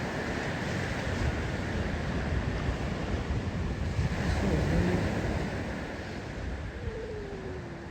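Ocean surf washing onto the beach, with gusts of wind buffeting the microphone.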